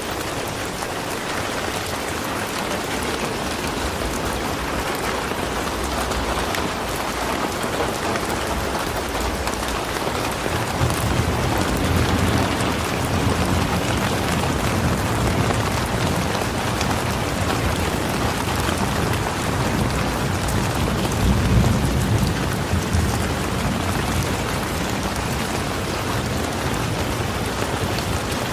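Steady heavy rain falling, an even hiss of drops. A low rumble swells in about ten seconds in, peaks around twenty seconds in, and fades again.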